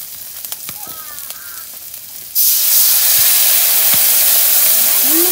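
Vegetables frying in a wok with a few light clicks; about two seconds in, water poured from a metal jug hits the hot oil and sets off a sudden loud hiss of sizzling and steam that keeps going.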